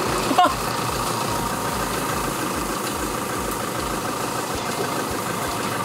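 Farm tractor's engine running steadily as it tows the tour wagon.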